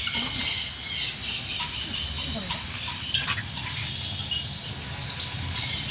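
A crowd of small caged birds chirping and squawking over one another in a continuous dense chatter, a little louder near the start and again near the end.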